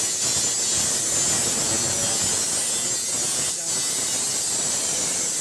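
Electric arc welding on a steel roaster drum: a steady crackling hiss, briefly interrupted about three and a half seconds in.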